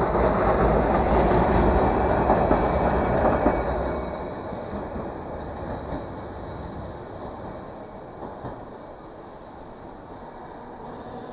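ATM Class 1500 'Ventotto' Peter Witt tram running on street track, loud for the first few seconds and then fading away. Its wheels squeal high and thin twice in the second half.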